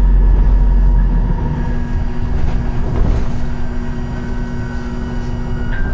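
Inside a moving city bus: steady engine and road noise with a hum, and a deep rumble that drops away about a second in.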